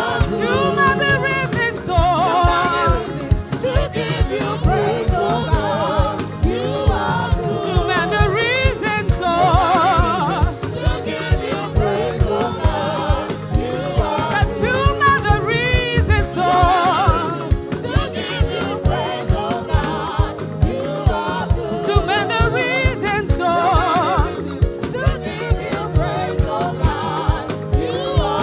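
Gospel praise song: a church choir singing with vibrato over a live band, with a steady drum beat of about two strokes a second.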